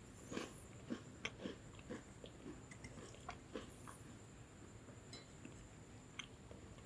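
Close-miked chewing of a lemon sandwich biscuit: short chewing strokes about twice a second that thin out after about three and a half seconds, with a single sharp click near the end.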